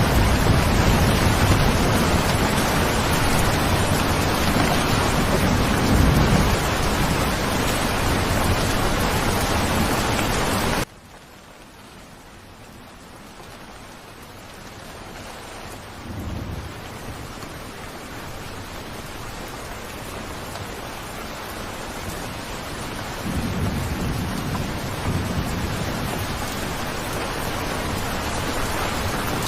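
Steady heavy rain with low rolls of thunder. About a third of the way in it cuts off abruptly to much quieter rain, which slowly swells back up with further rumbles of thunder.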